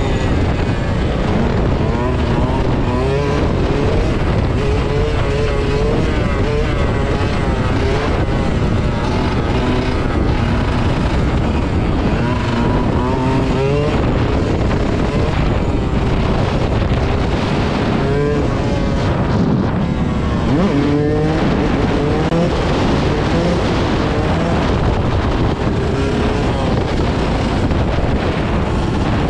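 Yamaha YZ125 single-cylinder two-stroke dirt bike engine running hard during a wheelie, its revs rising and falling over and over as the throttle is worked.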